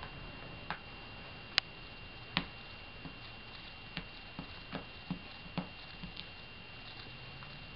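Fingers handling an iPod touch and pressing a wet invisibleSHIELD film onto its curved back: about a dozen small, irregular clicks and taps, the sharpest about a second and a half in.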